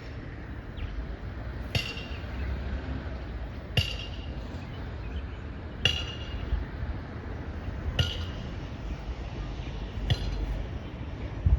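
Sharp metallic clinks of a hammer striking, one about every two seconds and five in all, each with a short ring, over a low rumble of wind on the microphone.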